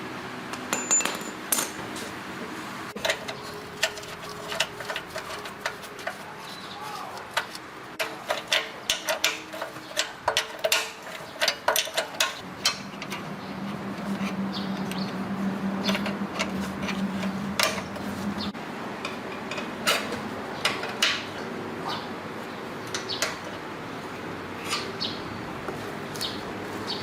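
Irregular sharp metal clicks and taps of hand work on a machine, thickest in the first half, with a steady low hum for about five seconds in the middle.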